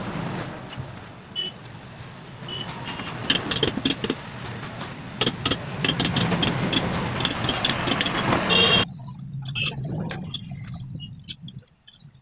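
Sharp metallic clicks and clinks of alternator housing and end-frame parts being handled and fitted together, over a steady low rumble of vehicle noise that cuts off suddenly about nine seconds in.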